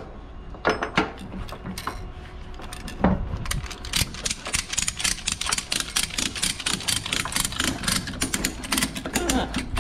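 Ratchet strap buckle being worked to tension a cargo strap: its pawl clicks in a rapid run from about three seconds in, after a few scattered clicks before.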